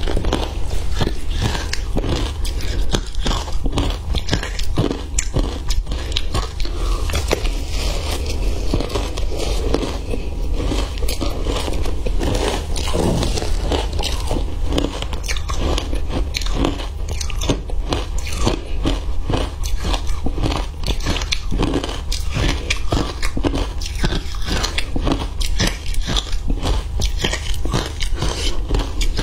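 A person biting and chewing crushed matcha ice, a rapid, continuous stream of crisp crunches.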